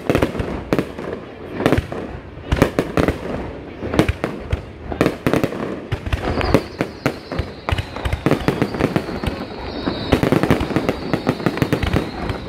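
Aerial fireworks shells bursting in a rapid, irregular volley of sharp bangs and crackles, growing denser near the end. A thin high whistle joins in about halfway.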